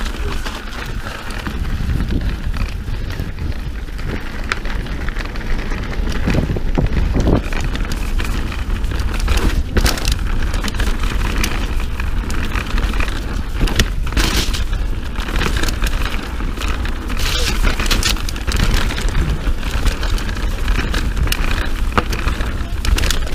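Mountain bike riding fast down a dirt forest trail: a constant rumble of wind buffeting the microphone, with tyre noise on the dirt and frequent sharp knocks and rattles from the bike as it goes over bumps.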